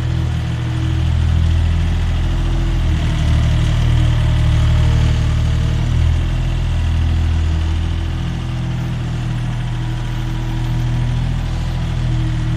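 MultiOne SD-series mini articulated loader's engine running steadily as the machine drives with a loaded bucket, a little louder for the first few seconds.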